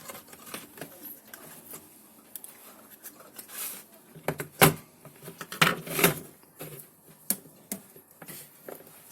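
Scattered clicks, knocks and a short scrape of a refrigerator control board and its plastic housing being handled and opened, the loudest knocks about halfway through.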